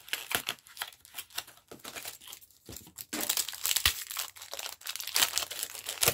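Pokémon trading card pack wrapper being torn open and crinkled: a run of irregular crackles and rustles, busiest in the second half.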